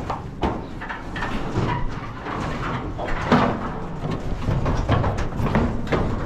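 Irregular metal clanks, knocks and rattles from the steel slatted side of a cattle trailer being climbed by its handholds, with one loud bang about halfway through.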